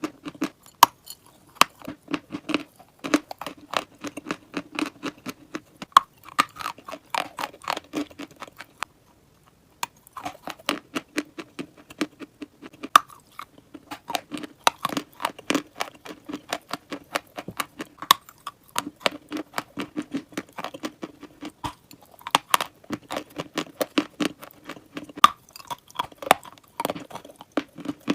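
Close-miked biting and chewing of crunchy dry chalk or clay, a dense run of sharp crunches with a brief pause about nine seconds in.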